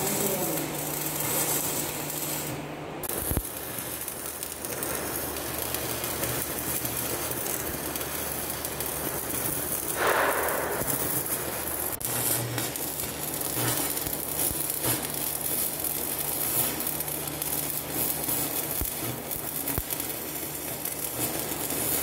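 Stick-welding arc on a steel Unistrut channel: a steady, dense crackle and sizzle, briefly breaking about three seconds in, with a low hum underneath.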